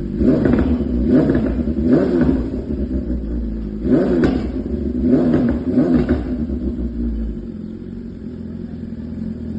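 Car engine revved in six quick throttle blips, each rising and falling in pitch, then dropping back to a steady idle for the last couple of seconds.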